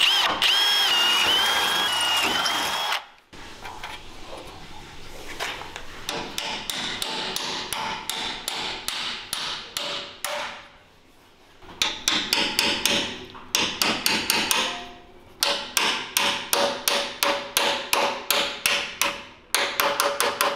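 A cordless drill bores a hole through metal tubing, the bit whining, and stops about three seconds in. After that, a hammer taps a weld bung into the end of the tube, in quick runs of sharp, ringing metal strikes at about four a second.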